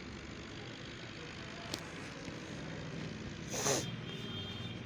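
Swaraj 855 tractor's diesel engine running steadily under the load of a heavy trolley. A short hiss-like burst cuts in about three and a half seconds in.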